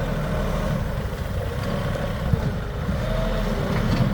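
Compact tractor engine running steadily, with a faint wavering whine above the low rumble.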